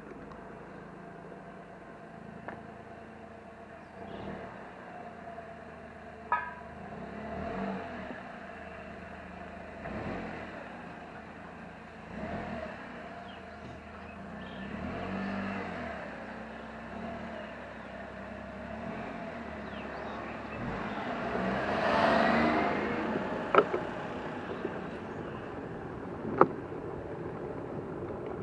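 Street traffic noise with a car passing, swelling to its loudest about 22 seconds in and fading, and a few sharp clicks.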